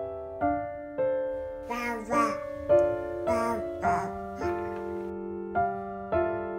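Gentle background piano music, one note struck roughly every half second. A high voice comes in briefly over it in the middle.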